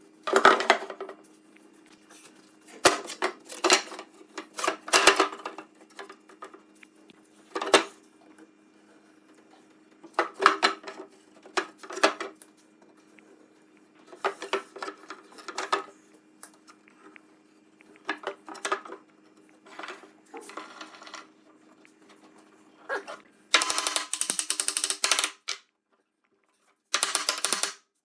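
Woodworking workshop sounds: irregular knocks and clatter of tools on wood over a steady low hum. Near the end, dense rapid rattling comes in two bursts.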